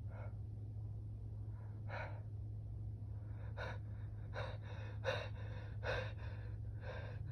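A man's sharp, gasping in-breaths as a sneeze builds: a couple of spaced breaths, then quicker ones about every half second from a few seconds in. These are the catching pre-sneeze inhalations of an allergy-irritated nose.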